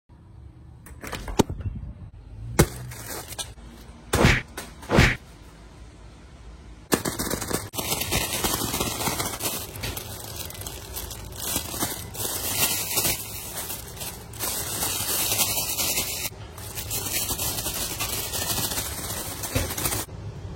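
A few sharp knocks, then a long stretch of loud, continuous crackling and rustling, like material being crumpled and handled, which stops suddenly near the end.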